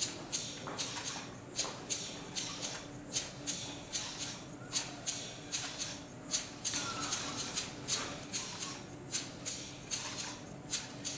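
LEGO pneumatic engine running on nitrogen gas boiled off from liquid nitrogen, venting a short hissing puff at each piston stroke, about two a second, as its plastic linkage legs clatter on the tile.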